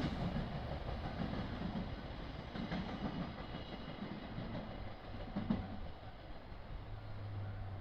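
A train running on the line past the crossing, with a low rumble and a few wheel clacks over rail joints, slowly fading.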